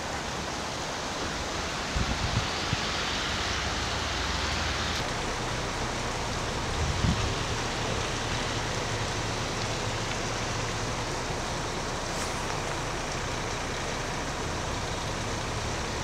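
Steady rushing noise of a waterfall in heavy spring runoff, an even hiss of falling water with a low rumble underneath.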